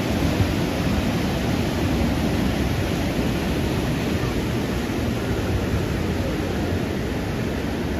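Steady, even rush of moving water, with no breaks.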